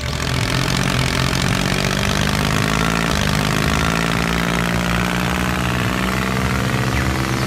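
A motor running steadily at an even pitch, with a dense hiss over its low hum; it starts and stops abruptly.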